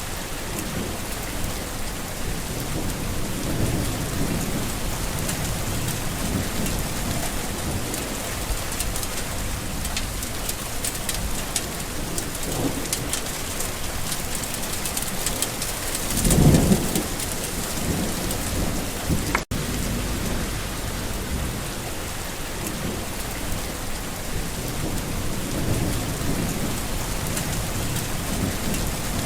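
Steady rain falling, with low rolls of thunder rumbling through it; the loudest thunder rumble swells about halfway through. The sound cuts out for an instant about two-thirds of the way in.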